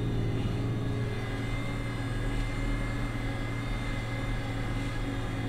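International 7288 2+2 tractor's diesel engine running steadily under load while pulling a six-bottom plow, heard from inside the cab, with a steady high whine over the drone.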